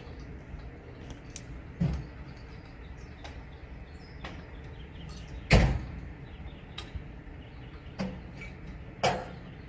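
Four dull knocks over a low, steady rumble; the loudest is about halfway through.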